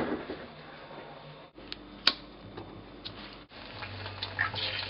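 Kitchen cooking sounds: a few sharp clicks and knocks, the loudest about two seconds in. Then, from about three and a half seconds in, a low steady hum with light ticking as an egg fries in a stainless steel pan.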